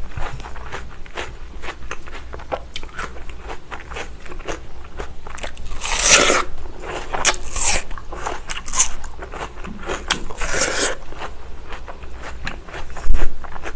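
Close-miked biting and chewing of a slice of watermelon: crisp crunching bites, the loudest about six seconds in and several more after, with wet chewing clicks between. A single low thump near the end.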